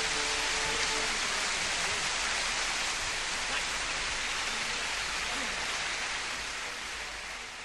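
Audience applauding and cheering at the end of a live song, fading out near the end, with the last held notes of the band dying away in the first second.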